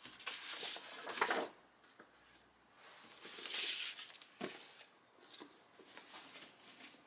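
Sheets of paper rustling and sliding on a tabletop in two bursts, with a light knock about four and a half seconds in.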